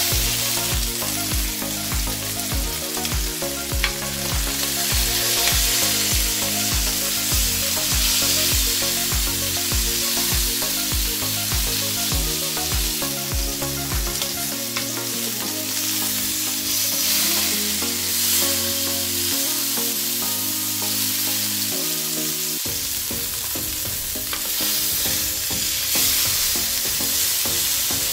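Rolled pork roast searing in hot oil in a ridged grill pan: a steady sizzle and hiss. Background music with a steady beat plays under it, its bass dropping out about three-quarters of the way through.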